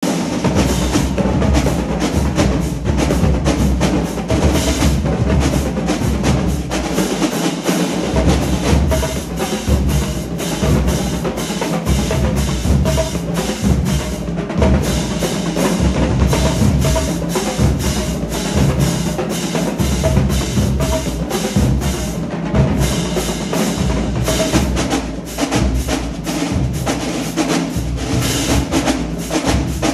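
HBCU-style marching drumline playing a cadence: a row of snare drums with bass drums and cymbals, dense, rapid drumming with low bass-drum hits throughout.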